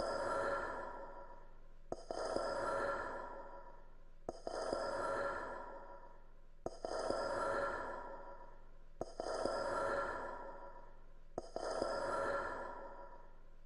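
A looped sound in the soundtrack: roughly every two and a half seconds a sharp click sets off a breathy, hissing swell with several held tones that fades away, about six times in even rhythm.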